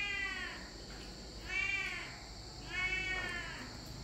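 A cat meowing repeatedly: three long meows, each rising and then falling in pitch, a little over a second apart.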